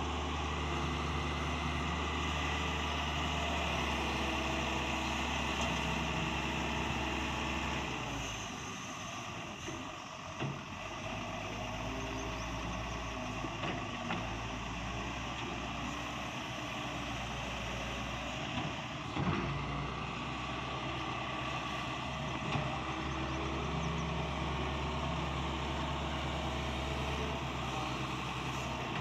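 Daewoo Solar 130 wheeled excavator's diesel engine running steadily as the machine works to free itself from soft dirt. The engine eases off about eight seconds in and builds back up later, with a few short clanks from the machine.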